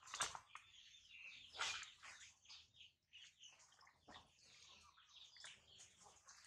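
Faint small splashes and stirring of water in washing basins, with scattered faint high chirps throughout.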